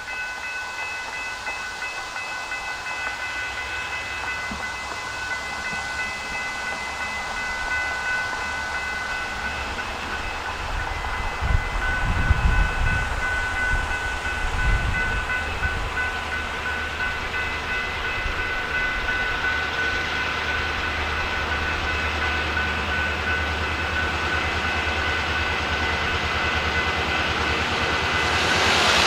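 Railroad crossing signal bell ringing steadily while an approaching freight train's diesel locomotive adds a low rumble that slowly grows. The sound swells near the end as the train draws closer.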